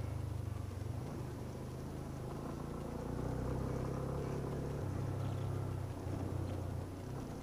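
Yamaha YBR250's single-cylinder four-stroke engine running under way as the motorcycle is ridden along a dirt track. The engine note shifts up and down several times as the throttle changes.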